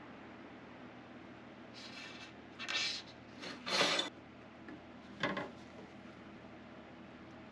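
Several short scraping or rubbing strokes, the loudest about four seconds in, over a faint steady hum.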